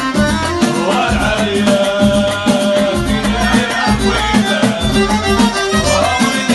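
Live Moroccan chaabi folk music: a violin melody over a steady beat on hand drums, with men singing into microphones.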